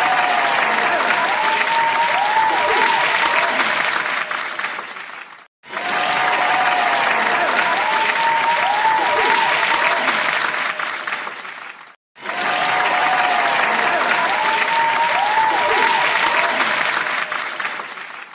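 Applause from a large audience: dense clapping that fades out near 5.5 s and near 12 s. Each time it cuts back in at full strength as the same clip, with a few faint rising and falling calls above the clapping.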